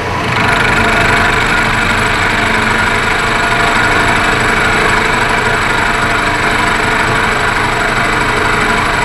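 Milling machine end mill taking a 50-thou-deep cut across an aluminum block. It is a steady machining noise with a hum and a thin high whine, which steps up just after the start as the cutter bites and then holds steady.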